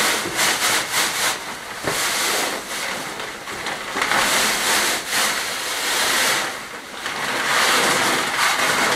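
Dry sand-and-gravel fill being poured out of a sack onto a floor, a rushing, hissing pour that comes in several surges as the sack is tipped and shaken.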